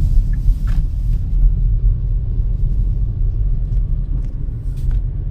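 Car driving: the steady low rumble of its engine and tyres on the road, heard from inside the cabin, with a few faint ticks.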